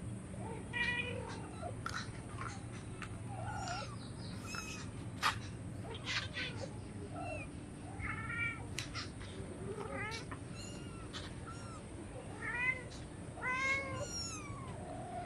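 A kitten mewing over and over in short, high, arching calls, with a few sharp ticks in between.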